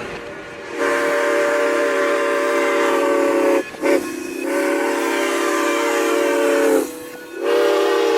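Steam locomotive whistle blowing, several notes sounding together over a hiss of steam: a long blast, a brief toot, a second long blast, and a third starting near the end.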